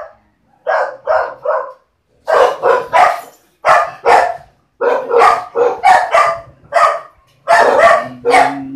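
A dog barking over and over in short sharp barks, in quick runs of two or three with brief pauses between them. A low steady hum comes in for about the last second.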